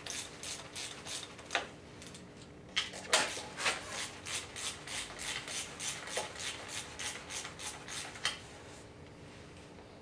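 Hand ratchet worked in quick short strokes, about four or five clicking runs a second, as the valve cover bolts are backed out. A few sharper metal clanks come in between, the loudest about three seconds in.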